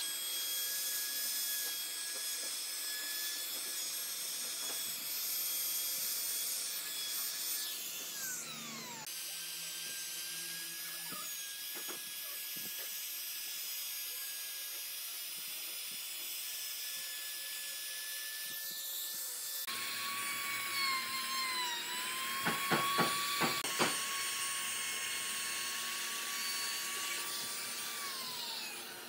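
Makita trim router running at a steady high whine as it cuts across an epoxy-and-wood tabletop, with a few sharp knocks about three-quarters of the way through. Near the end its pitch falls as the motor winds down.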